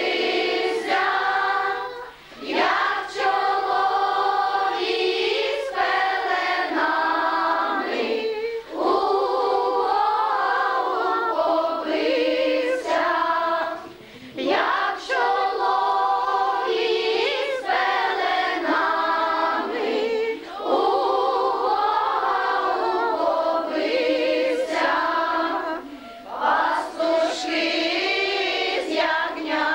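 A group of children and young women singing a Ukrainian Christmas carol (koliadka) unaccompanied, in unison. The song runs in phrases of about six seconds, with a brief breath between each.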